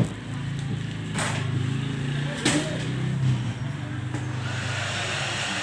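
Low steady hum with two short swishes, then a hair dryer switches on about four and a half seconds in and runs with an even hiss.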